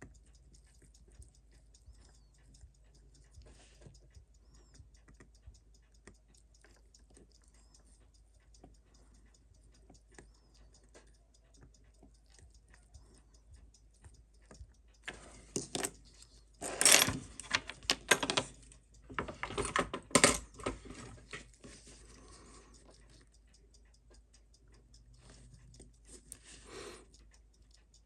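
Faint, fast, steady clockwork ticking. About halfway through come a few seconds of louder rustling and clatter from handling things at the bench.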